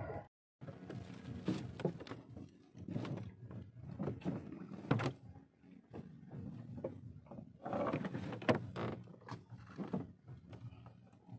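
Irregular knocks and clicks of fishing tackle being handled in a small wooden boat.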